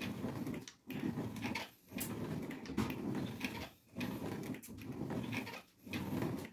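Ab roller wheel rolling back and forth across a tiled floor: a low rumble in strokes of about a second each, with a brief pause each time the wheel reverses direction.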